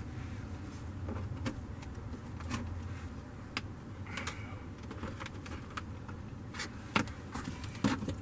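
Scattered sharp plastic clicks and creaks as a power window switch is pried out of its plastic door trim housing, over a steady low hum.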